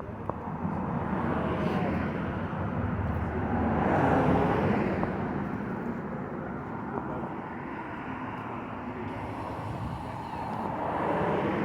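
Passing vehicle noise outdoors, a rushing sound that swells and fades: loudest about four seconds in, then building again near the end.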